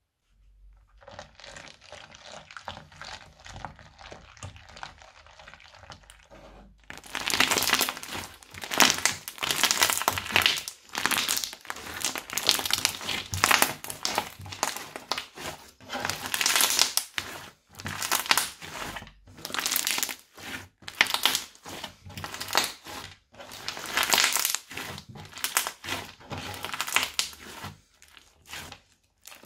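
Crunchy slime being squeezed and kneaded by hand, crackling and popping in repeated bursts. It is fainter for the first several seconds and much louder from about seven seconds in.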